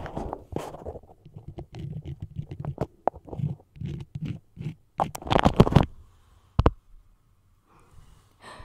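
Long acrylic fingernails tapping and scratching on a crumpled beeswax food wrap held close to the microphone: irregular crinkly taps and scrapes, busiest and loudest about five seconds in, then dying away near the end.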